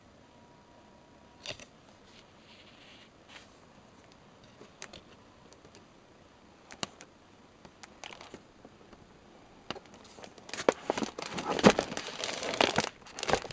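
Paper pages of a book being handled and turned: scattered light clicks and rustles, then a longer stretch of louder paper rustling and crinkling about ten seconds in.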